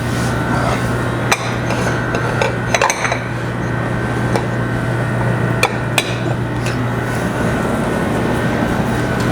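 Kitchen utensils and dishes clinking and knocking a few times, with a small cluster about three seconds in, over a steady low machine hum.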